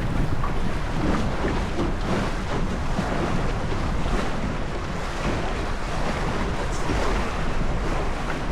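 Steady wind buffeting the microphone over water washing against the hull of a small sailboat under way.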